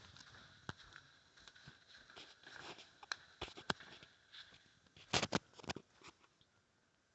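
Faint, scattered clicks and taps over a quiet hiss, with a louder cluster of clicks about five seconds in.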